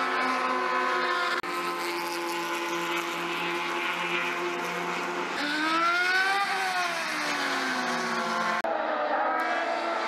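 Race car engines running at speed around a road course, the sound changing abruptly a few times. Midway an open-wheel race car passes, its engine pitch climbing and then falling away.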